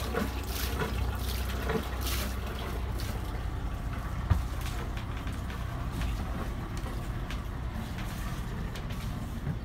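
Cooling water splashing and gushing from a boat engine's wet exhaust outlet at the waterline, over the engine's steady low running hum; water coming out of the exhaust is the sign that the engine's cooling water is circulating. A single knock about four seconds in.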